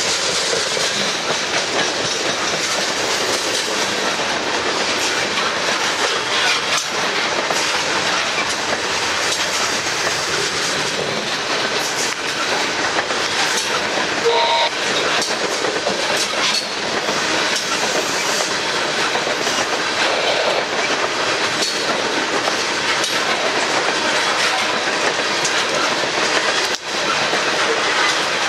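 Train cars rolling past steadily: continuous wheel-on-rail rumble and rushing with scattered clicks and clacks of wheels over the rails.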